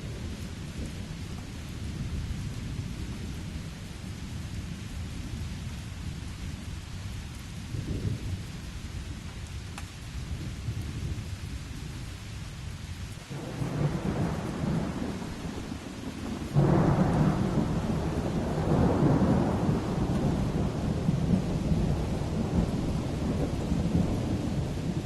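Steady rain with low rolling thunder. About halfway through a rumble of thunder swells up, and a few seconds later a louder peal breaks and keeps rolling.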